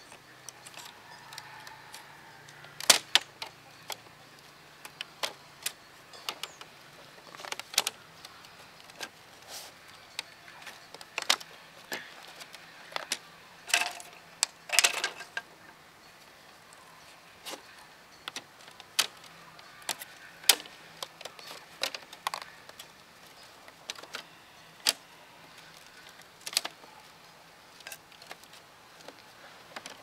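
Thin split-bamboo strips clicking and clattering against each other and the concrete as they are woven into a lattice panel: irregular sharp taps and light rattles, a couple of louder clacks a few seconds in and again around the middle.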